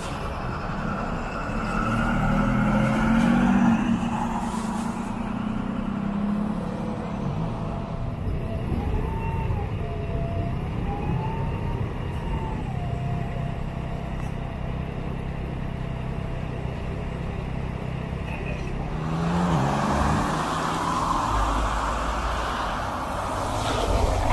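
City buses running and moving at a bus stop, with a low engine hum that swells early on. A thin whine rises and falls in the middle, and a louder rush of road noise comes in near the end as a bus moves.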